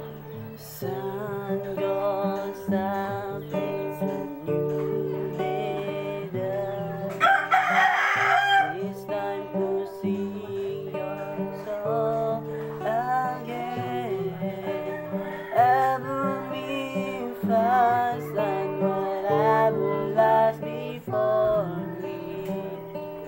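Acoustic guitar strummed and picked, with a man singing along. A rooster crows in the background about seven seconds in.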